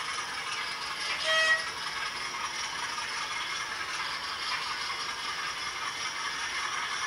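OO gauge model train running along the track: a steady rattle and whir of wheels and motor, with one short horn toot about a second and a half in.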